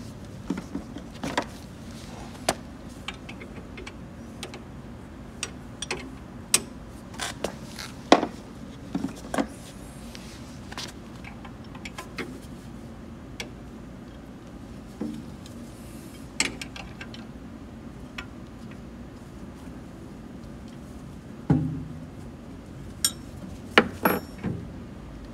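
Irregular small clicks and metallic knocks of hand work on the tumbler's motor and belt drive, over a steady low background hum, with a louder run of knocks near the end.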